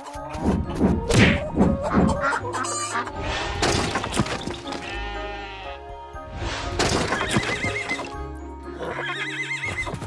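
Cartoon soundtrack music, with a run of falling, swooping sounds in the first couple of seconds and deep held low notes later on.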